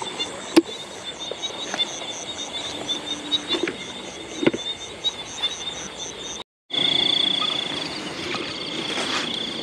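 Night chorus of frogs and insects from a wet rice field: a steady high trill with a faster pulsing call about four times a second over it, and a few sharp clicks. The sound drops out for a moment about six and a half seconds in, and after that a high steady trill is louder.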